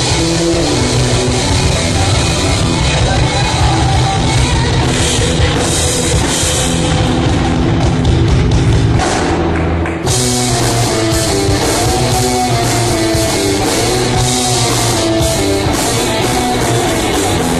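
Live reggae-rock band playing: electric guitar, bass and drum kit. The music dips briefly about ten seconds in, then the band plays on.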